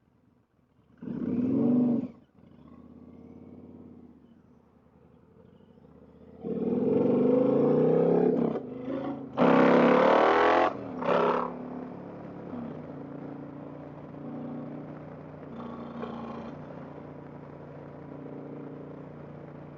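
Indian Challenger's 108 cubic inch V-twin engine under way on the road, picking up speed in three bursts of throttle with short breaks between, then settling to a steady cruise.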